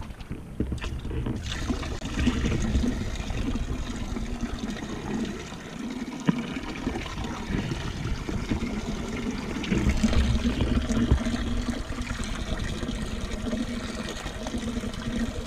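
Water trickling and splashing, with low rumbles of wind on the microphone that are strongest about ten seconds in.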